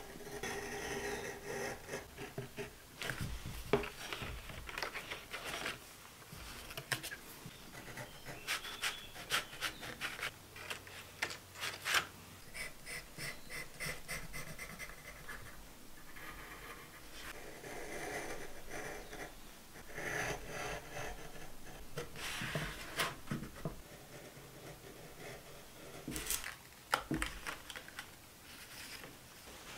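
Close-up scratching of a craft knife cutting paper along a ruler and a pencil drawing on paper, with paper rustling as stencils are handled: many short scratches and clicks, a few sharper than the rest.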